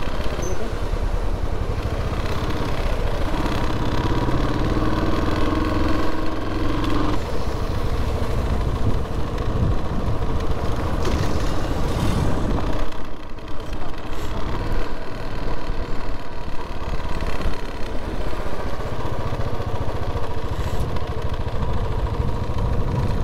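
Motorcycle engine running steadily as the bike is ridden along a town road, with road and wind noise.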